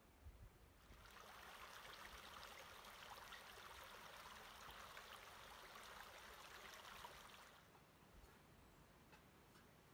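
Faint running water, a crackly splashing hiss that starts sharply about a second in and fades out after about six and a half seconds.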